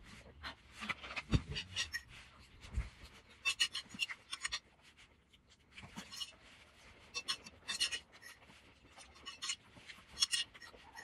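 Small eating and handling noises from a fork, a plate and a plastic bottle: irregular light clicks and scrapes, with two dull knocks in the first three seconds.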